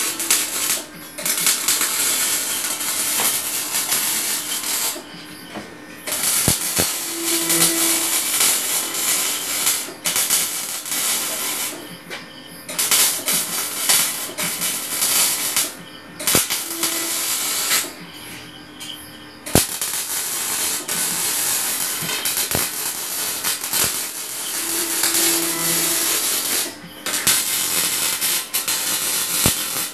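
Electric arc welding on steel: a loud, steady crackling hiss from the arc, cutting out for a second or so every few seconds as the arc is broken and struck again.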